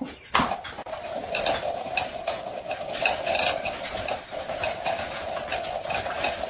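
Small upturned white cups being slid and shuffled around on a rubber floor mat: a steady scraping, with light clicks as the cups knock and are set down.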